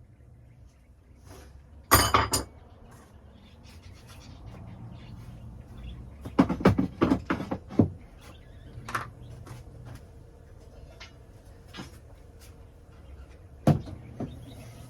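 Knocks and clatters of hard objects: one short burst about two seconds in, a denser run of clatters a little past the middle, and a single sharp knock near the end.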